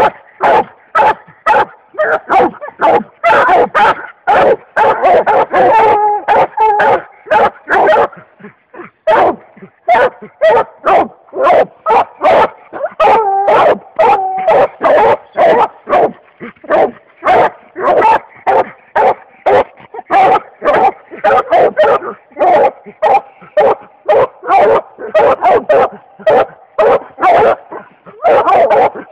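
Black and tan coonhound barking at a tree in a fast, steady run of chop barks, about two to three a second, a few drawn out longer. It is the hound's treeing bark, the sign that it has its quarry, typically a raccoon, treed.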